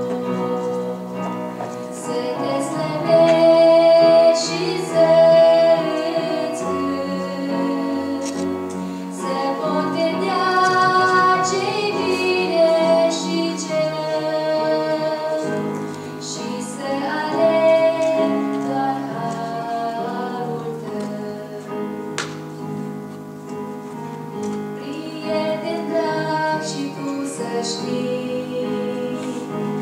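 A woman singing a Romanian hymn solo, with held, wavering notes over sustained electric keyboard chords.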